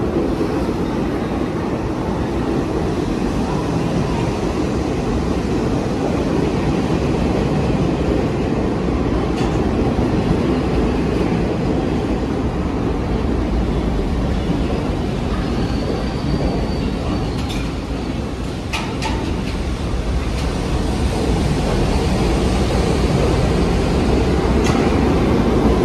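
New York City subway train running through the station, a steady low rumble, with a brief faint high whine and a few sharp clicks about two-thirds of the way in.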